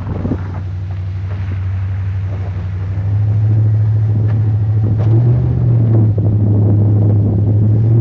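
Duramax turbodiesel V8 of a Chevrolet Silverado plow truck running under load as it pushes snow with its V-plow: a steady low engine drone that gets louder about three seconds in.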